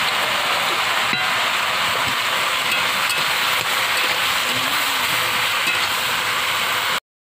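Potatoes and greens frying in oil in a metal wok, a steady sizzling hiss as they are stirred and tossed with a metal spatula, with a few light scrapes of the spatula on the pan. The sound cuts off suddenly shortly before the end.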